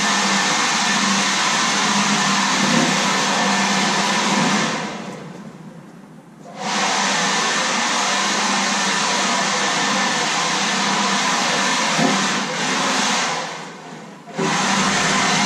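Handheld electric leaf blower running at full speed, blowing out the cargo box of a box truck. Twice it is let off and winds down, then comes back up to speed abruptly: once about five seconds in and again near the end.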